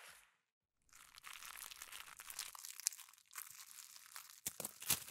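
Cellophane candy wrappers crinkling and crackling as a sock puppet munches a mouthful of wrapped candies, starting about a second in after a short silence, with sharper crackles near the end.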